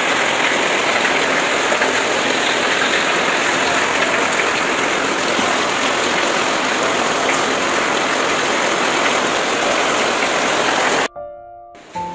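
Heavy rain pouring onto a corrugated sheet roof and running off its edge: a loud, steady rush. It cuts off suddenly about eleven seconds in, and soft music follows.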